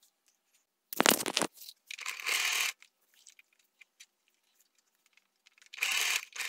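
Fabric of a sewn face mask being handled and slid into place under a sewing machine's presser foot: a short bump with rustling about a second in, a longer rustle of cloth sliding, a few faint clicks, and more rustling near the end. The machine itself is not running.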